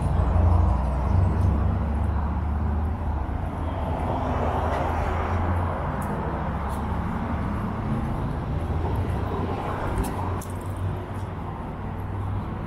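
Outdoor street ambience dominated by a steady low rumble of passing vehicles, heaviest in the first half and easing after, with a broad hiss over it.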